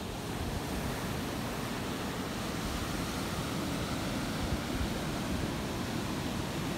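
Ocean surf breaking and washing up the beach, a steady rushing noise, with wind rumbling on the phone's microphone.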